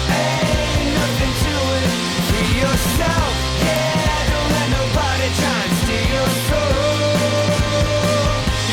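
Rock song playing as background music: band with drums and guitars, with sung vocal lines.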